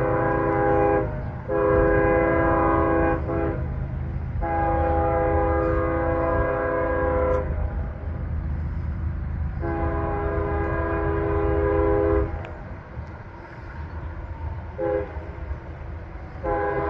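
Diesel locomotive air horn sounding a chord in several long blasts and a brief toot near the end, over the low rumble of a passing train that drops off about two-thirds of the way through.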